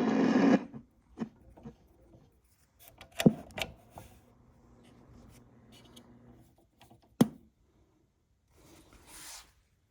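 Talk from a 1966 Dodge Dart AM radio cuts off about half a second in. Scattered clicks and knocks of handling follow, the sharpest about three and seven seconds in, with a short soft rustle near the end.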